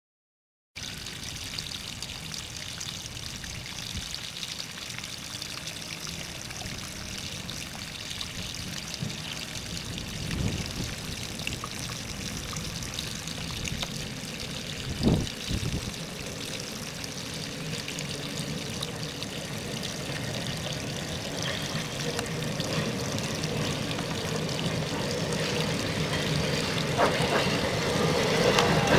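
Steady rolling noise of an electric trolley car on the rails, growing gradually louder toward the end, with a single sharp knock about halfway through.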